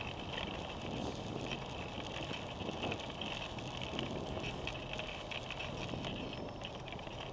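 Steady ride noise from a bicycle rolling along a paved bike path: tyres on the pavement and wind on the bike-mounted microphone, with street traffic behind it.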